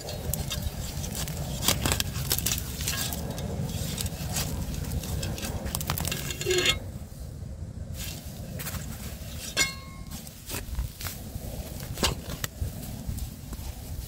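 Metal garden spade digging and scraping into soil and weed roots, its blade clinking and ringing briefly a couple of times, with gloved hands rustling and tearing grassy weeds out of the earth.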